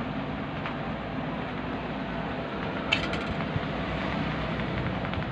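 Steady background of street traffic and shop noise, with one sharp metallic click about three seconds in and a few faint ticks as the bench power supply and its wiring are handled.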